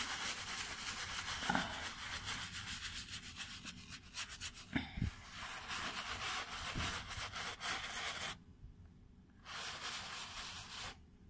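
Wet shoe brush scrubbing the front of a sneaker's upper in quick short strokes, a rapid bristly rubbing. It stops briefly about eight seconds in, resumes for a second and a half, then stops.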